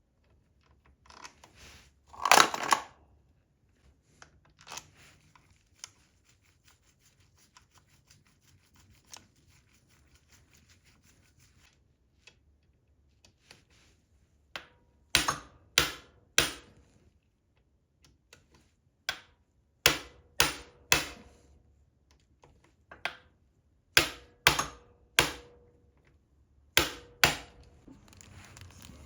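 Sharp metallic taps and knocks from hand work on motorcycle engine parts during assembly. They come mostly in quick groups of two or three, some leaving a brief ring, with a faint run of fine, rapid ticks in between.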